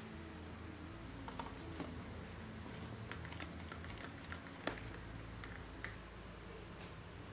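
Scattered light clicks and taps, about eight over several seconds and loudest a little before the five-second mark: a pencil tip and a small aluminium piece being handled against a metal square.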